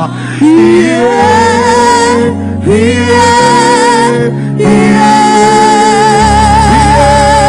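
Gospel worship singing: a voice holds long notes with vibrato and slides between pitches over sustained accompanying chords, with the bass note changing a few times.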